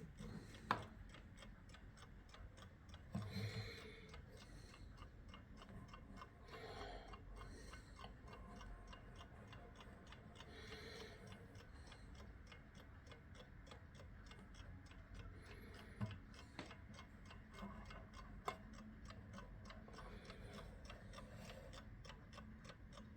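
Vintage 1966 German mechanical alarm clock ticking quietly with a fast, even beat. A few louder single clicks and a knock stand out, the sharpest about a second in.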